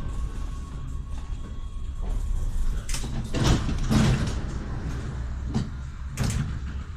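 Tram's passenger doors working at a stop: a cluster of sharp knocks and hisses about three to four seconds in and two more near the end, over the low steady hum of the standing tram.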